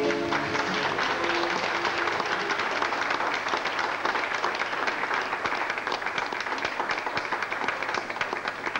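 Audience applauding, as the last notes of the song's backing track die away in the first couple of seconds.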